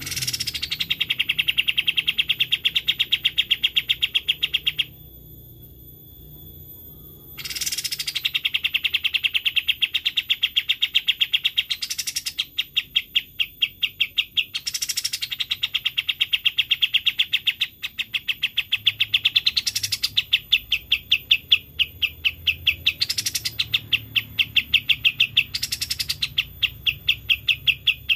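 Kapas tembak (white-shouldered triller) singing its rapid rattling trill, a fast run of evenly spaced notes that opens each phrase with a high falling note. The phrases repeat several times, with one longer pause about five seconds in and brief breaks between the later phrases.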